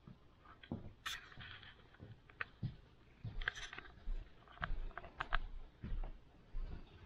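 A tabby cat playing on a rug, its claws scratching and scraping at the carpet, with irregular small clicks, rustles and a few soft low thumps.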